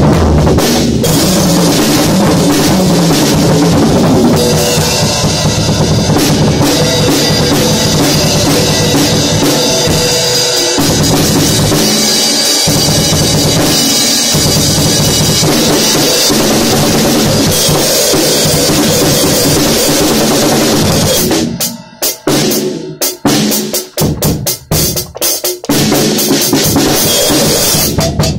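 A drum kit played loud and continuously. About three quarters of the way through it breaks into a run of short, separated stop-start hits with brief gaps between them, then carries on.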